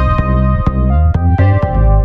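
Electronic instrumental music: synthesizer and keyboard chords over a heavy bass line, with a steady beat of sharp drum hits.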